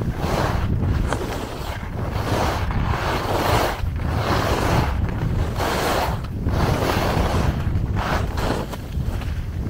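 Wind buffeting the microphone as a skier descends, with the hiss and scrape of skis on groomed snow swelling and fading with each turn, about once every second or so.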